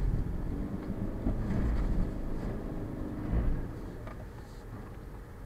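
Subaru Forester's 2.5-litre naturally aspirated flat-four engine running and tyre rumble, heard from inside the cabin as the car drives over a rough dirt track. There are a few short knocks as it goes over uneven ground, and the noise eases off toward the end.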